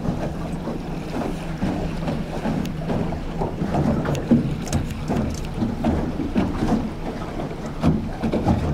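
Outboard motor of a Stabicraft 2050 Supercab aluminium boat running at slow cruising speed with a steady low hum. Water slaps unevenly against the hull, and wind buffets the microphone.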